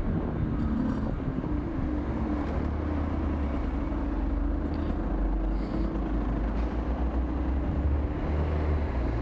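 Single-cylinder motorcycle engine idling steadily with the bike at a standstill.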